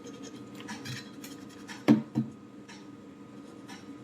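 Light scratching and clicking of a small hand tool working on a circuit board, with two sharp knocks close together about two seconds in.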